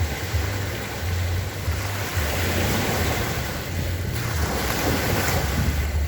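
Black Sea surf washing on the shore, swelling louder about two seconds in, with wind buffeting the microphone.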